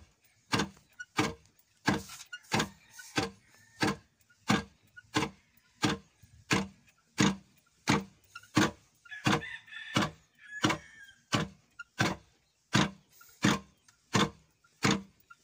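Wooden foot-operated lever rice pounder (khok mong) pounding rice in a stone mortar: a steady run of heavy knocks, about three every two seconds.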